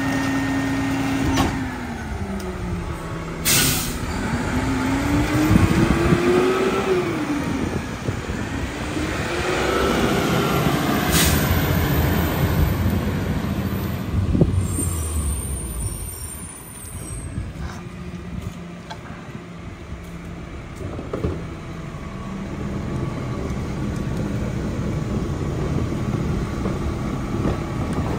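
Mack LEU garbage truck's diesel engine revving as it pulls away and runs up through the gears, with short air-brake hisses about three and a half and eleven seconds in. It then settles to a steady idle.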